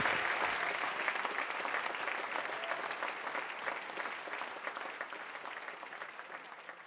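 Audience applauding, many hands clapping in a dense patter that steadily fades away.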